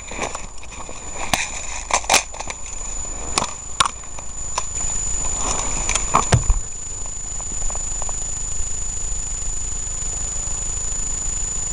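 Running through forest undergrowth with a body-worn camera: scattered footfalls, snapping twigs and knocks of gear against the camera, then a heavy thump about six seconds in, after which a steady hiss remains. A faint constant high whine sits underneath.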